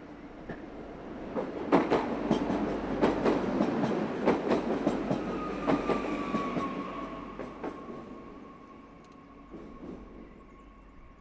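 A regional passenger train passing close by: the rumble swells, the wheels clatter over rail joints in a run of sharp clacks, then it fades as the train moves away, leaving a high whine that dips slightly in pitch and lingers.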